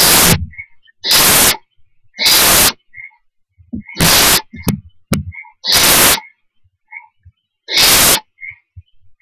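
Barn owl owlets giving their harsh, rasping hiss calls, six of them one to two seconds apart. This is the hissing 'snore' that barn owl chicks use to beg for food.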